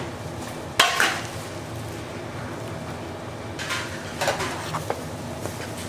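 Kitchen utensils clattering against metal pots and trays, with one sharp clank about a second in, then a short scrape and a few light knocks.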